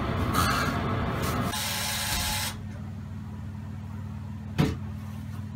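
A drying cabinet running with a steady low hum, its airflow rushing loudly for the first two and a half seconds and then dropping away, leaving the hum. A single sharp click near the end.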